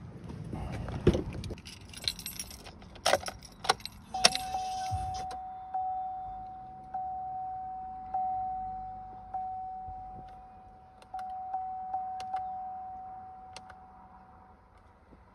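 Keys jangling with door and cabin clicks, then a 2013 Chevy Tahoe's dashboard warning chime dinging steadily about once a second when the ignition is switched on with the engine off; each ding fades before the next, and the chime stops near the end.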